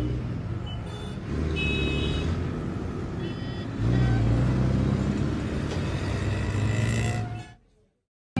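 Street traffic: motorbike and car engines running, with a steady low rumble and a few short high-pitched tones. It cuts off to silence near the end.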